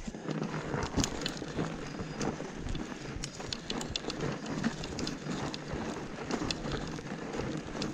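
Fat bike rolling over a snowy trail, picked up by a camera on the handlebars: a steady noisy hiss of the tyres on snow with frequent small clicks and knocks from the bike.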